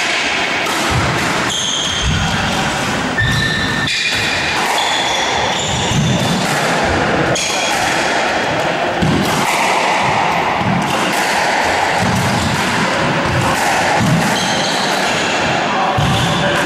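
Squash rally: repeated thuds of the ball off rackets and walls, with short high squeaks of shoes on the wooden court.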